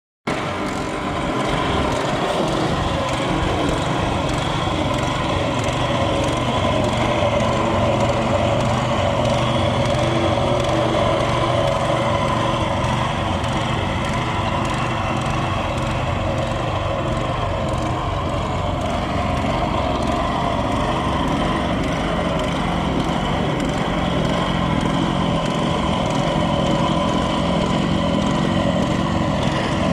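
An engine running steadily at an even speed, without a break.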